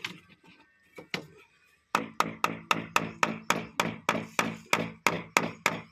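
Rapid hammering during the installation work: a few scattered knocks, then from about two seconds in a fast, even run of about five strikes a second, each ringing briefly.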